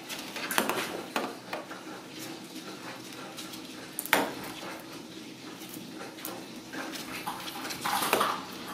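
Ragdoll kittens batting at a ball toy on a wire fixed to a wooden door: scattered sharp clicks and rattling clatter, loudest about four seconds in and again near the end.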